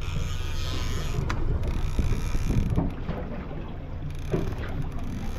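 Fishing reel working under the heavy load of a large halibut: a mechanical whirring in the first second and a half, with a click, over a steady low rumble.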